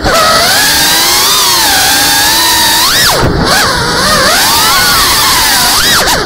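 FPV quadcopter's brushless motors whining, several tones gliding up and down with the throttle over a steady hiss of prop noise. The whine briefly sags and surges back up about halfway through and again near the end.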